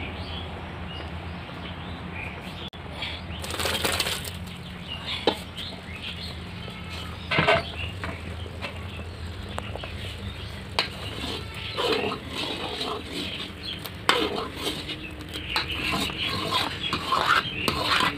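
Liquid boiling hard in a wide metal pan over a wood fire, with irregular pops and crackles over a steady low hum.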